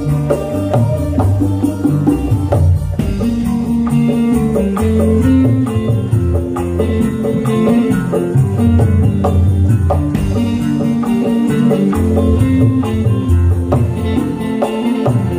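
Dangdut band playing live: wooden kendang hand drums struck in quick rhythm over a moving bass line and melody.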